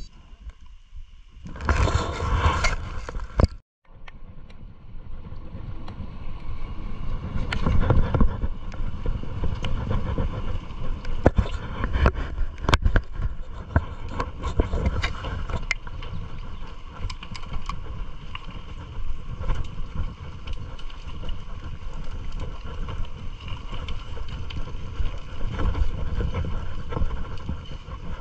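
Mountain bike rolling over wet pavement: steady tyre and road noise with frequent rattles and clicks from the bike. A loud rush about two seconds in, cut off by a brief dropout just before four seconds.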